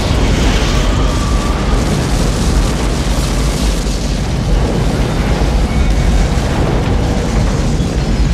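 Movie sound effect of a building being blown up and collapsing: a loud, continuous deep explosion rumble that runs on without a break.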